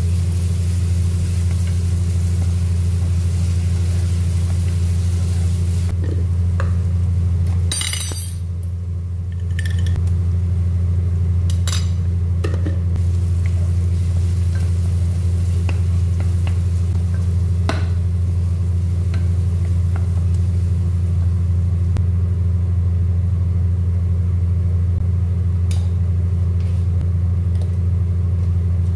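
Onions and ginger paste frying in oil in a pot, stirred with a wooden spatula: a light sizzle with occasional scrapes and knocks of the spatula against the pot. Underneath is a loud, steady low hum that dips briefly about eight seconds in.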